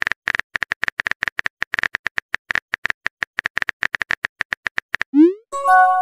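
Phone keyboard tap clicks, one per letter as a text message is typed, coming quickly and unevenly for about five seconds. Near the end, a short rising send swoosh and then a steady chime tone.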